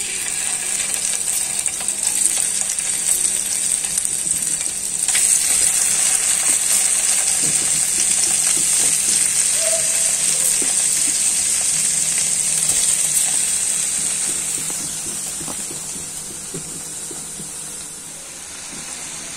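Masala-coated paneer cubes sizzling as they fry in hot oil in a frying pan: a steady high hiss that swells about five seconds in and eases off toward the end.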